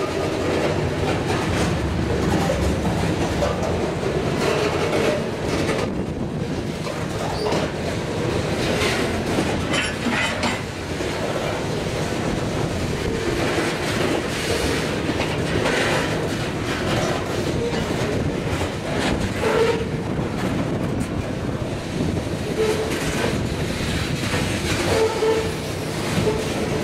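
A freight train of covered hopper cars rolling past close by: steady rumble and clatter of steel wheels over the rails, with brief wheel squeals a few times.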